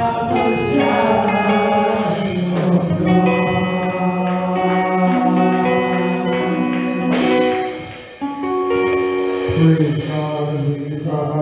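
A man singing a gospel worship song into a microphone over instrumental accompaniment, with a brief dip in loudness about eight seconds in.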